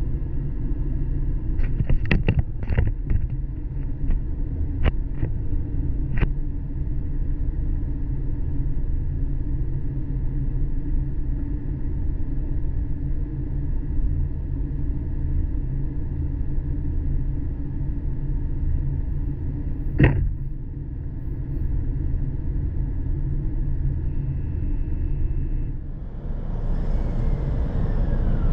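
Steady low hum inside the cabin of an 800 Series Shinkansen standing at a station. A few sharp clicks come in the first several seconds and one loud knock about twenty seconds in, and a hiss rises near the end.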